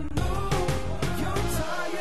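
Background pop music with a steady beat and a sung melody.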